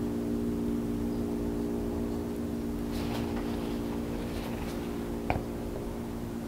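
Steady low mechanical hum, unchanging throughout, with a single faint tick about five seconds in.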